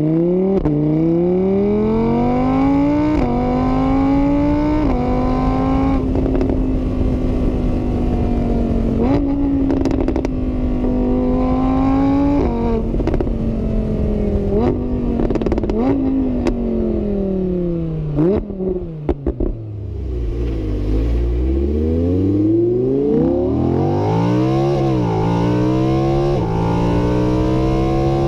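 A motor vehicle engine revving, its pitch climbing and falling over and over with sudden jumps; about twenty seconds in it drops low, then climbs again unevenly.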